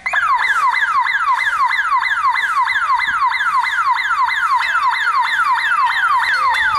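Electronic security alarm siren sounding, starting suddenly and then repeating a fast falling wail about four times a second.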